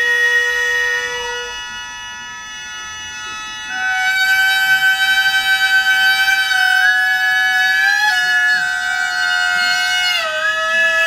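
Gagaku ritual music: a shō mouth organ holds sustained chord clusters of high, steady tones. A wind melody enters louder about four seconds in, holding long notes and sliding between them.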